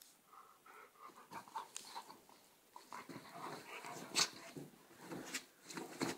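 Border collie and Czechoslovakian wolfdog tussling, panting and whining, with a few sharp clicks, the loudest about four seconds in.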